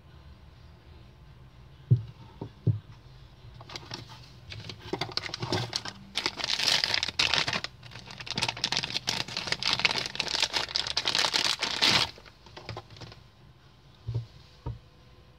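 Clear plastic packaging bag crinkling loudly for several seconds while a door handle is unwrapped. A few short knocks come before it and two near the end.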